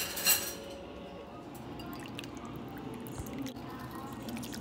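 Ladle scooping pasta e fagioli soup in a pot, the soup sloshing and dripping, with two short sharp noises right at the start.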